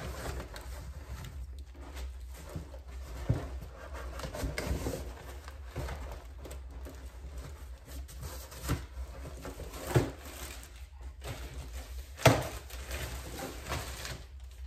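Large flat cardboard shipping box handled and opened by hand: cardboard scraping and knocking, with a few sharper thumps about 10 and 12 seconds in. Plastic wrapping rustles near the end as the wrapped part is drawn out.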